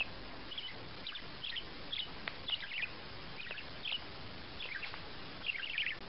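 A budgerigar chattering in short, high chirps, about two a second, with a louder run of chirps near the end, over a steady background hiss.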